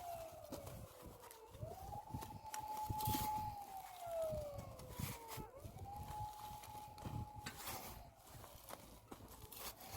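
Siren wailing: a held tone that slides down and then jumps quickly back up, about once every four seconds, over irregular low knocks and rumble.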